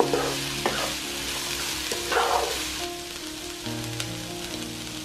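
Diced onion and smoked tofu sizzling in a nonstick frying pan while a wooden spatula stirs them, with three louder stirring strokes: at the start, just under a second in, and about two seconds in.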